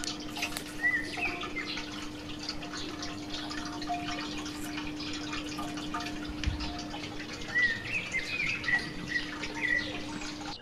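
Small birds chirping in short rising-and-falling notes, a few about a second in and a livelier run near the end, over faint scattered clicks and a steady low hum.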